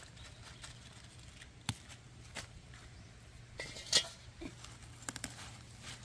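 Lettuce leaves snapped off by hand and handled in a metal colander: scattered snaps and rustles, with the sharpest click about four seconds in.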